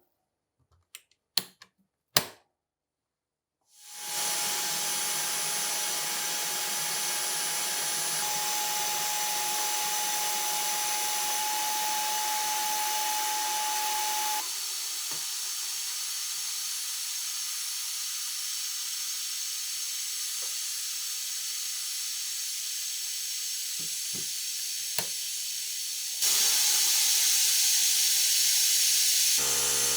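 A few light metallic clicks, then a steady, even hiss from a workshop tool at work, shifting in level twice where the footage is cut.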